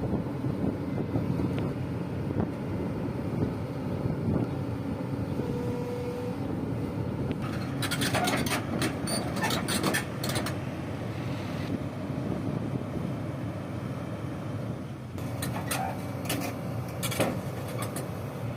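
Heavy vehicle engine running steadily, with two spells of metallic knocks and rattles: one about halfway through and one near the end.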